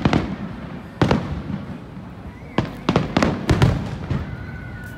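Aerial fireworks shells bursting: sharp bangs that rumble on after each one, one at the start, another about a second in, then a rapid cluster from about two and a half seconds on.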